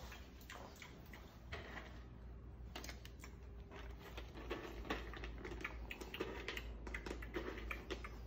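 Light, irregular clicks and rattles of dry dog kibble in a plastic food bowl being rummaged, busier in the second half.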